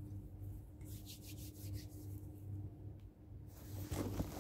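Plastic bag crinkling and rustling as it is handled: a short spell about a second in, then louder crackling with small clicks near the end, over a steady low hum.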